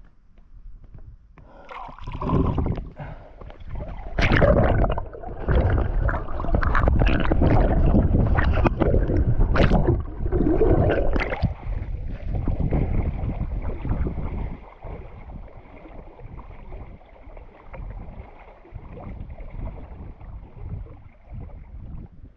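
Shallow seawater splashing and sloshing as a released bronze whaler shark swims off. The splashing is loud and choppy for about twelve seconds, then settles to a gentle lapping.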